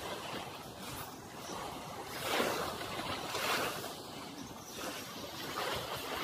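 Small sea waves breaking gently and washing up the sand, a steady hiss of surf that swells twice around the middle.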